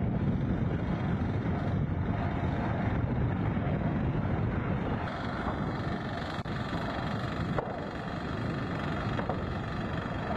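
Military helicopters flying past: steady, dense rotor and engine noise, with a brighter hiss joining about halfway through.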